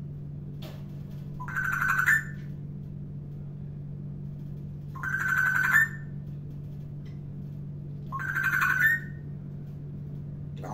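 African grey parrot giving the same held, electronic-sounding call three times, roughly three seconds apart, each rising slightly at the end, over a steady low hum.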